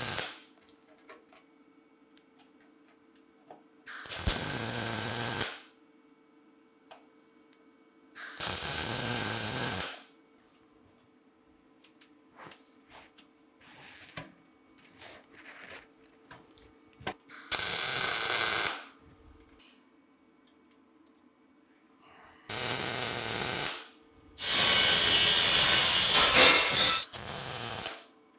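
MIG welder laying short tack welds on steel sheet: about six separate bursts of hiss, each starting and stopping abruptly and lasting one to two and a half seconds, the longest near the end. A faint steady hum and small clicks fill the gaps between bursts.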